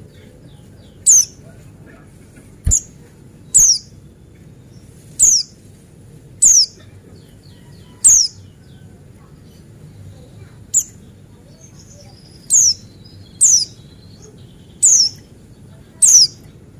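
Buxtoni white-eye (pleci Buxtoni) singing a series of short, sharp, high notes that fall in pitch, about one every second or so, with faint soft twittering between them.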